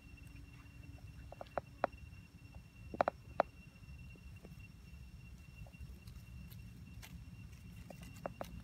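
Dry leaves and twigs crackling on the forest floor, with scattered sharp clicks and a couple of louder cracks about three seconds in, over a low rumble and a faint steady high tone.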